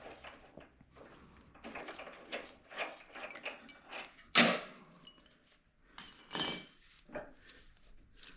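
Workshop handling noise: irregular knocks and clinks of metal parts and hand tools. There is a sharp clunk about four seconds in and a ringing metallic clatter about six seconds in.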